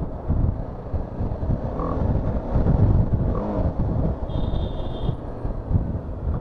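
Small naked sport motorcycle being ridden on the road: the engine running under a low, uneven road-and-wind rumble, with little exhaust note. A brief high-pitched tone sounds a little past four seconds in.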